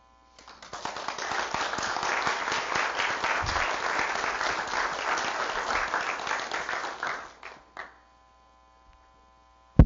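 Audience applauding, many hands clapping for about seven seconds, then dying away. A single sharp thump near the end.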